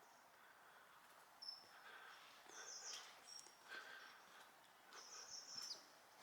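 Near silence with a few faint, high-pitched bird chirps, in short groups about a second and a half, three seconds and five seconds in.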